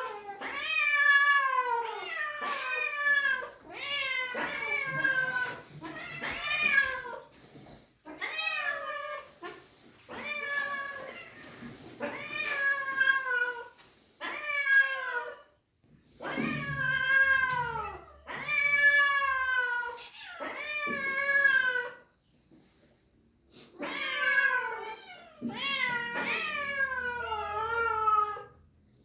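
Several cats meowing loudly and repeatedly, one long drawn-out call after another, often overlapping, with only brief pauses: excited cats calling for food.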